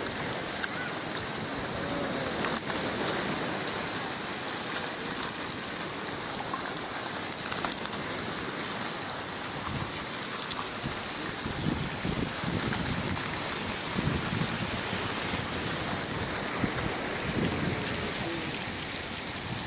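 Steady hiss of water with occasional low splashes.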